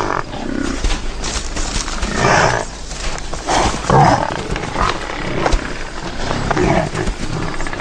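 Cape buffalo calling: a series of rough, harsh calls about a second or so apart as a cow urges her newborn calf to move.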